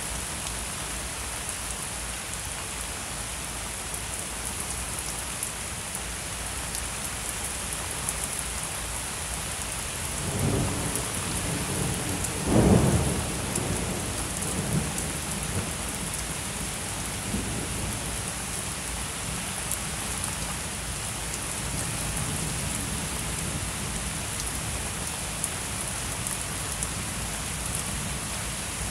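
Heavy thunderstorm rain falling steadily. About ten seconds in, thunder rumbles, peaks in a sharp clap a couple of seconds later, then rolls away over several seconds.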